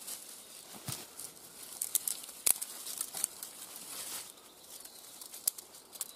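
Dry twigs and forest litter rustling, with scattered small crackles and clicks.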